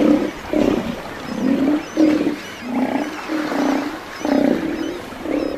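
Steller sea lion bulls roaring: a string of short, low roars, one after another, from males squabbling over positions on the shore rocks.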